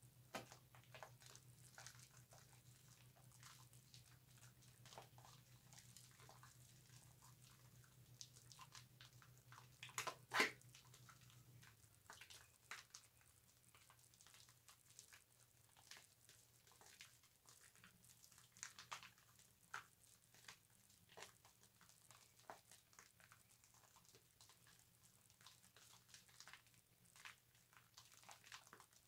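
Faint, soft crackling and squishing of bar-soap lather on a loofah, made of scattered small clicks, with one louder crack about ten seconds in.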